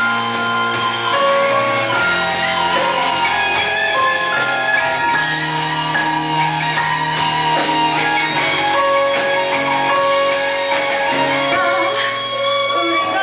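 Instrumental break of a pop-rock ballad played live: guitar over sustained bass notes, with a cymbal or hi-hat tick about twice a second and no vocals.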